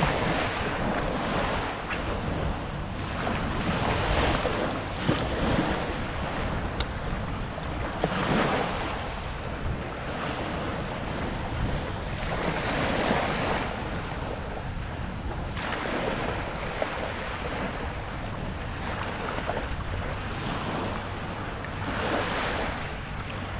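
Surf breaking and washing onto the beach, swelling and easing every few seconds, with wind rumbling on the microphone.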